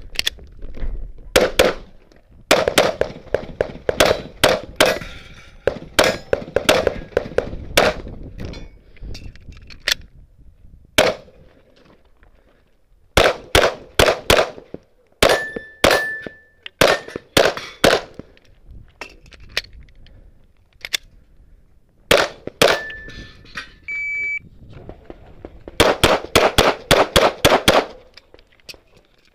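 Handgun fired in rapid strings of shots, pistol-competition style, with short pauses between the strings as the shooter moves and reloads. Now and then a steel target rings briefly after a hit.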